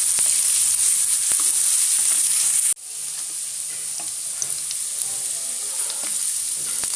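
Chopped onion sizzling in hot oil in a pan while being stirred with light scraping. The steady sizzle drops suddenly about two and a half seconds in, then carries on quieter.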